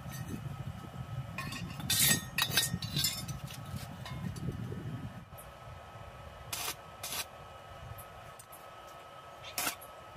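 Steel square tubing clinking and clanking as the pieces are set against each other. After a quiet stretch come three short crackling bursts from a welder tacking the joint.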